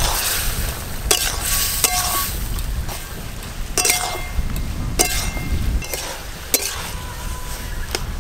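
A metal spatula stirring vegetables in a metal wok, scraping and striking the pan in about six sharp clinks with a short ring, over a steady sizzle from the pan.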